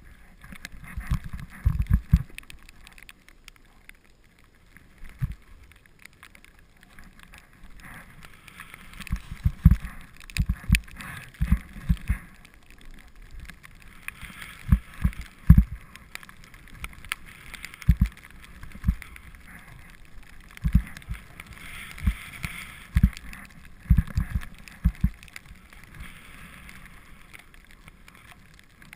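Wind buffeting a moving camera, heard as irregular low thumps, over a steady hiss of snow scraping under a rider going down a ski slope.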